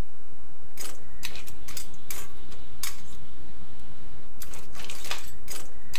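Slotted metal spatula scraping and clinking against a metal kadai as crab pieces in a little masala water are stirred and tossed: a string of irregular scrapes and knocks, pausing about three seconds in, over a low steady hum.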